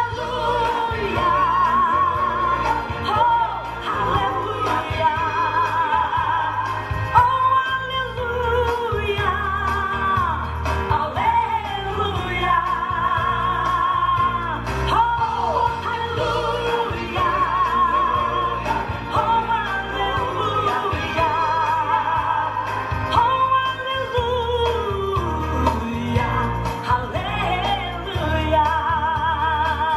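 A song: a singer holding long notes with vibrato and gliding between them, over a steady instrumental accompaniment with a continuous bass.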